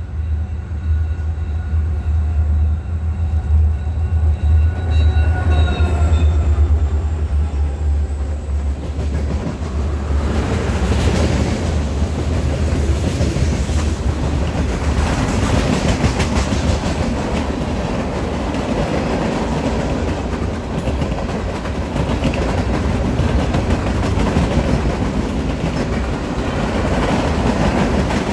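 Diesel freight locomotives approaching and passing with a heavy deep engine rumble and a whine rising in pitch. About nine seconds in, the freight cars take over: a steady rush of rolling steel wheels with clickety-clack over the rail joints.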